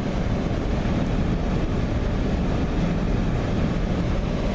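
Steady low rumbling noise with an even hiss over it.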